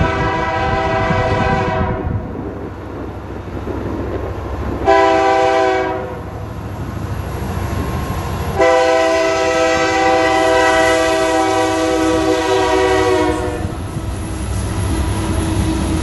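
Indiana Rail Road freight locomotive's multi-note air horn sounding for a grade crossing: a long blast ending about two seconds in, a short one about five seconds in, then a long blast of about five seconds from near nine seconds. Underneath runs the low rumble of the passing train and wind, heard from inside a car.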